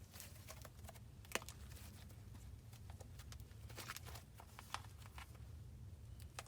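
Slime being handled and squished, giving faint, irregular small clicks and pops over a steady low hum.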